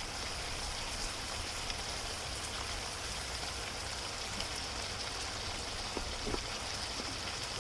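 Diced kohlrabi and chicken stir-frying in a wok, a steady sizzle with a few faint ticks about six seconds in.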